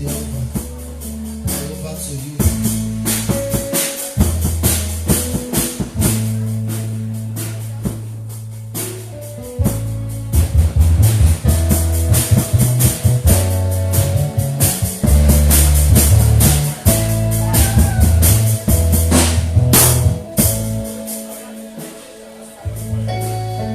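Church band music with bass guitar, drum kit and tambourine playing a steady beat, the percussion picking up about ten seconds in.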